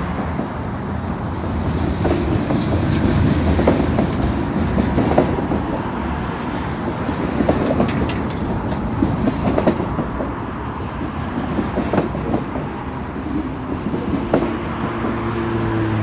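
Freight cars of a long manifest train rolling past, their wheels clattering over the rail joints in a run of irregular clicks and knocks.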